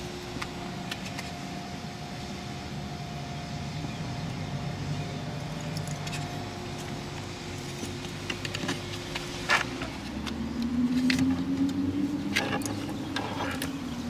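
Thin LED wiring and a plastic T-splitter connector being handled inside a car door, with a few sharp clicks and light rattles, over a steady low hum. About ten seconds in a louder low drone sets in, rising slightly in pitch.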